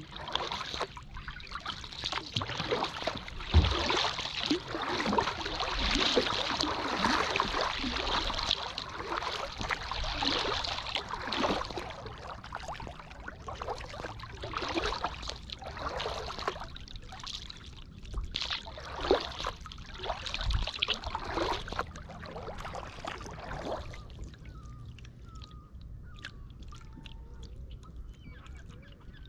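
Kayak paddle strokes: water splashing and dripping off the blades in irregular surges, with one sharp knock about three and a half seconds in. About 24 seconds in the paddling stops, leaving low water noise and faint bird calls.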